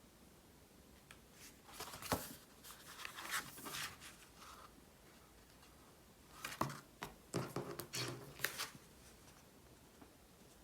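Small handling sounds: two bursts of clicks, scrapes and rustles as objects are picked up and moved about, with a quiet pause between them.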